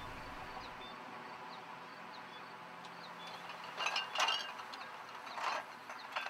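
Faint outdoor garden ambience with small bird chirps, and a few short rustling or scraping noises about two-thirds of the way in and again near the end.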